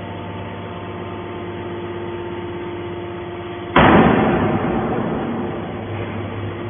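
Hydraulic aluminum can baler running with a steady motor-and-pump hum, then a sudden loud burst of noise about four seconds in that fades away over about two seconds.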